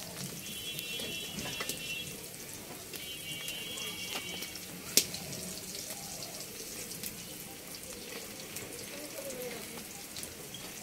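Sliced onions sizzling in oil in a metal karai over a wood fire, with fine crackling throughout as a spatula stirs them. There is one sharp click about five seconds in.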